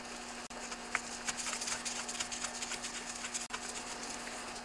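Faint small metal clicks and light scraping as the bar nuts are put on and turned by gloved fingers onto the bar studs of an Echo CS330 top-handle chainsaw, over a steady low hum.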